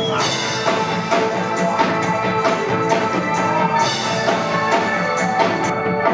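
Reggae band playing live, with drum kit, electric bass, electric guitar and keyboards.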